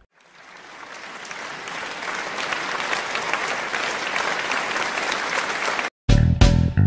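Dense applause from many hands, swelling up and then holding steady; it stops abruptly about six seconds in and guitar music with a heavy bass line starts straight after.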